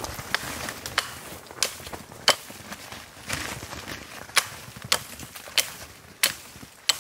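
Hatchet chopping the limbs off a felled conifer: about nine sharp strikes, roughly one every two-thirds of a second, with a short pause near the middle, amid rustling of the branches.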